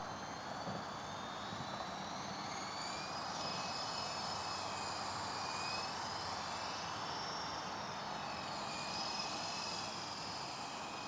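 E-sky Big Lama coaxial electric radio-controlled helicopter flying: a steady rotor rush with several high motor whines that drift slowly up and down in pitch.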